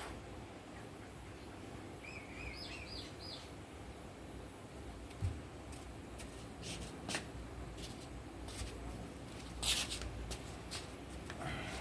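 A few small bird chirps about two to three seconds in, over a steady low background noise, then scattered light clicks and knocks, the loudest a short rattle near the end.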